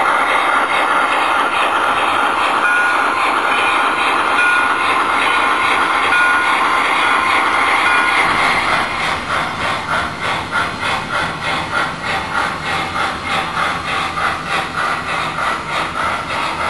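HO-scale MTH Triplex steam locomotive model and its train running on the layout, the Proto-Sound 3.0 speaker playing steam sounds. First comes a steady hiss mixed with wheels rolling, with a few short high squeaks. About eight seconds in this gives way to rhythmic chuffing at roughly two to three beats a second.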